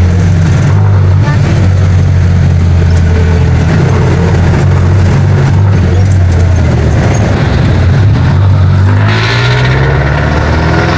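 Jeepney's diesel engine running with a steady low drone, heard from inside the passenger cabin. Near the end its pitch rises as it revs up.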